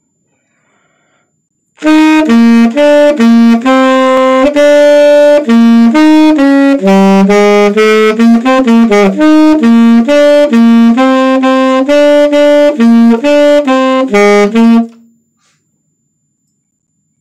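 Unaccompanied tenor saxophone playing a quick run of short, separated notes. It starts about two seconds in and stops a couple of seconds before the end.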